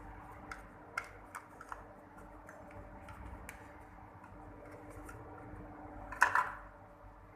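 Faint scattered clicks and taps over a low steady hum, with a brief louder clatter about six seconds in.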